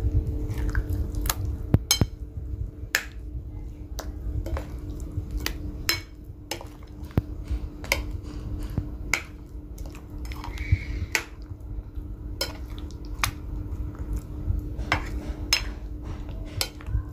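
Chicken pieces being mixed by hand in a glass bowl of thick marinade, with irregular clicks and knocks against the glass about once or twice a second. A steady low hum runs underneath.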